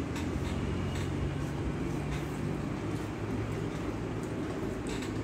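Steady low background hum with a few faint soft ticks of fingers mixing rice and dal in a steel plate.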